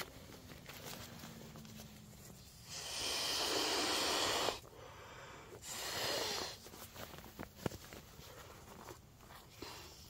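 Nylon bedding fabric rustling as a camouflage poncho liner and sleeping gear are smoothed and pressed down on a cot: a long swishing burst about three seconds in and a shorter one around six seconds, with light handling clicks between.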